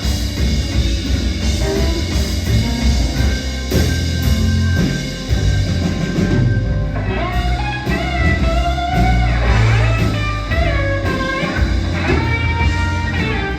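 Rock band playing, with drum kit and bass and electric guitar. About halfway through, a lead guitar line of bending notes comes in over them.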